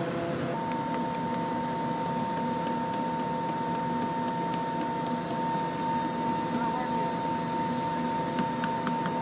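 Steady whine and rumble of running aircraft machinery. A high steady tone comes in about half a second in, and a few faint ticks are heard near the end.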